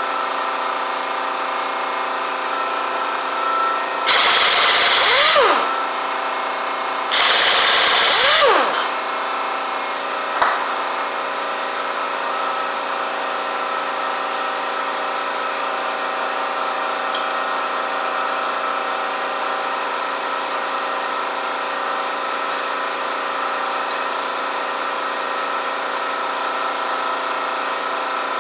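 Two bursts from an impact wrench, each about a second and a half long, spinning up and down as it loosens fasteners on a Harley Twin Cam engine. A steady hum runs underneath, with a single click shortly after the second burst.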